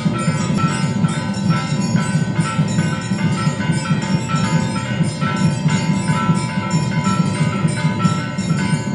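Temple bells rung continuously during aarti: repeated metallic strikes with a sustained ringing tone, over a dense low din.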